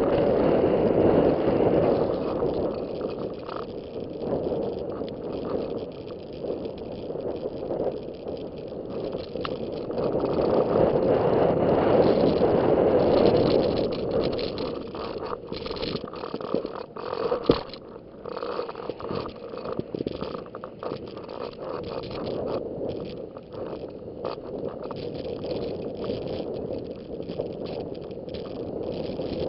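Snow hissing and scraping under a rider sliding down a powder slope, mixed with wind rush on the microphone. It swells louder at the start and again about ten to fourteen seconds in, then turns choppier and crackly, with a sharp knock a little past halfway.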